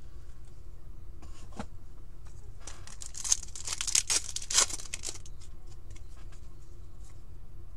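Foil wrapper of a hockey trading-card pack crinkling and being torn open, with a cluster of sharp crackles about three to five seconds in.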